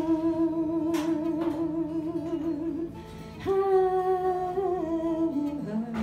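A woman sings long held notes with vibrato over an acoustic guitar. A second, higher note enters a few seconds in and steps down, and she drops to a lower note near the end.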